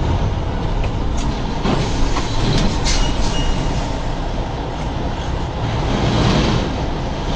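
Steady engine and road noise of a heavy vehicle on the move, heard from inside its cab, with a few rattles and clicks in the first three seconds.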